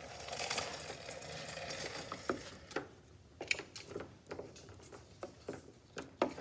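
Hands working modelling clay on a sheet of paper on a tabletop: a soft paper rustle, then a run of irregular light taps and clicks from about three seconds in.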